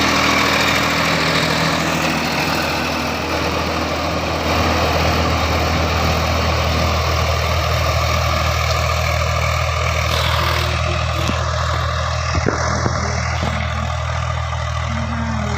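Tractor engine idling steadily with a low, even hum, and one brief knock near the end.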